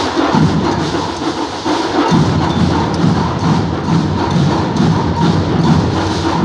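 Afro-Brazilian carnival bloco percussion playing a steady beat: deep drum strokes about twice a second with sharp, wood-like clicks over them.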